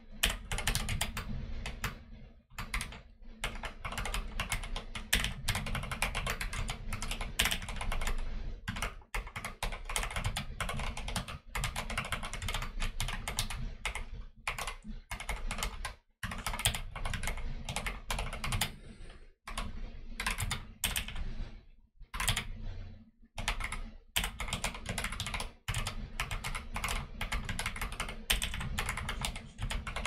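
Fast speed-typing on a YMDK Wings Arisu-layout mechanical keyboard with Akko Jelly Black linear switches and Akko Neon keycaps: a dense, continuous clatter of keystrokes, broken by several brief pauses.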